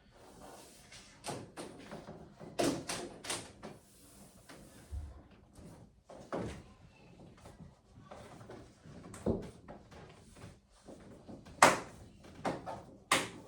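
Irregular sharp clicks and knocks as a retaining strip is pushed into its channel to lock a display panel in place, with the loudest snap coming near the end.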